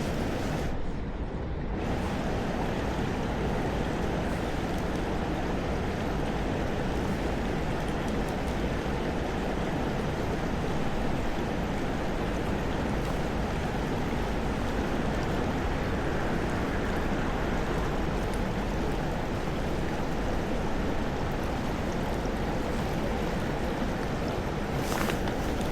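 River water rushing steadily past, an even, unbroken flowing noise.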